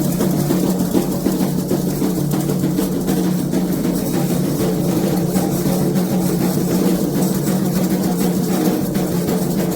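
Candomblé atabaque hand drums playing a dense, continuous rhythm for a ritual dance.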